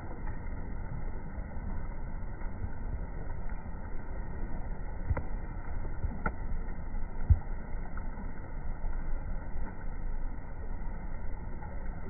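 Steady low rumble of outdoor background noise, with a few light clicks and knocks, the loudest about seven seconds in. No bird call.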